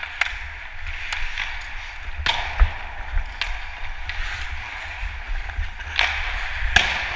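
Ice hockey skate blades scraping and carving on the ice, with about five sharp clacks of sticks and puck, the loudest near the middle and near the end, over a steady low rumble.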